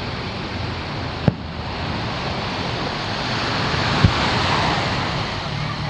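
Surf washing on the beach, a steady rushing noise that swells to its loudest about four seconds in and then eases, with two sharp bangs of distant aerial firework shells bursting, about a second in and about four seconds in.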